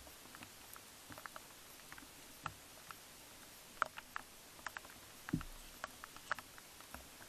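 Faint, irregular light clicks and rustles from a muntjac deer walking and foraging in grass, with one low soft thump a little after five seconds in, over a steady hiss.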